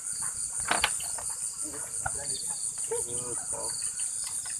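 A steady chorus of night insects chirring: a continuous high-pitched buzz with a faster pulsing trill beneath it. A sharp knock comes a little under a second in.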